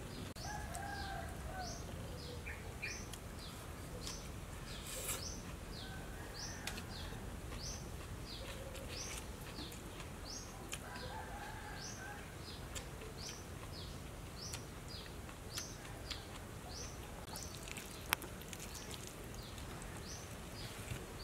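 A bird calling over and over in short, high, falling chirps, about two a second, with fainter calls from other birds in the background. A few sharp clicks stand out, the loudest near the end.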